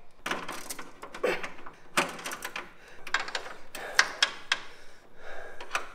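Metal tool clatter: a wrench being handled and worked against a brake line fitting, giving a string of irregular sharp clicks and short scrapes.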